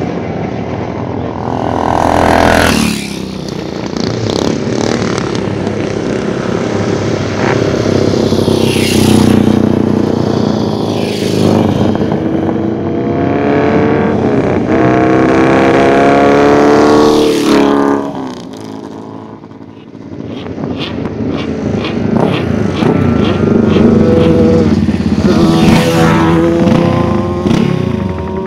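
Racing motorcycle engines accelerating hard, the pitch climbing through each gear and dropping at each shift, with several runs in turn and a short lull about two-thirds through.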